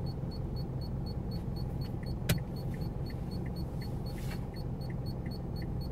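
Car engine idling, heard from inside the cabin, with a quick, even electronic ticking of about four ticks a second over it. There is a single sharp click a little over two seconds in.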